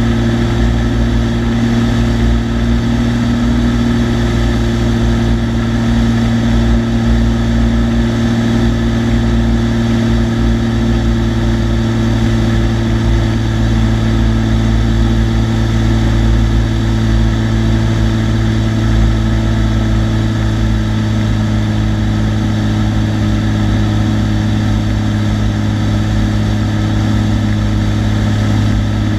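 Cessna TU-206D's turbocharged six-cylinder piston engine and propeller running steadily in flight: an even, unbroken drone with a constant low hum.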